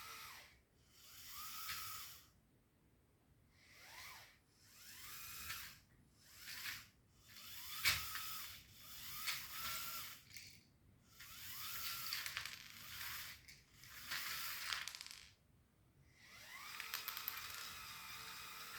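Small Lego Powered Up electric motors and gearing on a Lego Technic excavator whirring in repeated short bursts, starting and stopping about nine times with short pauses between, some rising in pitch as they start. A sharp click sounds about eight seconds in.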